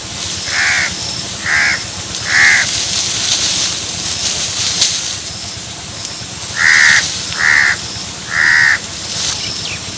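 A bird cawing in two runs of three short harsh calls, the runs about six seconds apart.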